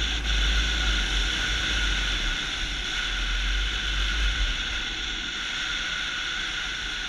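Steady in-flight noise of a powered paraglider on the pilot's camera: a constant rush with a low rumble, easing slightly near the end.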